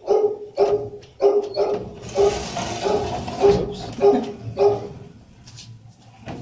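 Dog barking repeatedly in a shelter kennel, about two barks a second, stopping about five seconds in.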